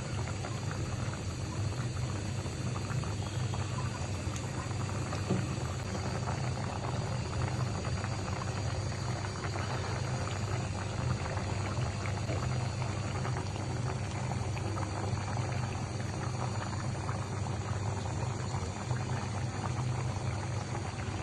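Fish curry bubbling and simmering in a pan: a steady dense crackle of small bubbles over a steady low hum.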